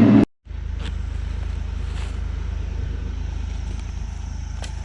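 Bobcat E42 mini excavator's diesel engine running steadily, a low even drone, picking up after a brief dropout just after the start.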